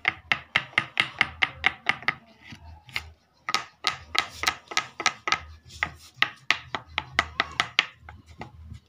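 Quick, even run of sharp clicking strokes on a curved boar's tusk as it is worked by hand, about four to five a second. They break off for a moment about two seconds in, then go on again until near the end.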